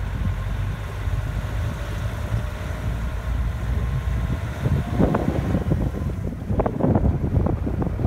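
Vehicle driving on a dirt road: steady low engine and tyre rumble. About five seconds in, wind begins buffeting the microphone in irregular gusts.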